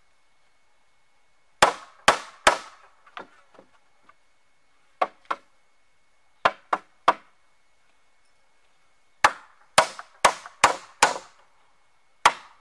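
Small hatchet used as a hammer, its poll driving nails into wooden planks: sharp knocks in bursts of two to five, with pauses between.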